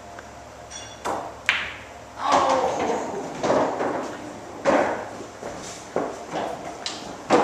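Pool balls clacking on a coin-operated bar pool table: about half a dozen sharp knocks of cue on ball, ball on ball and ball against the cushions.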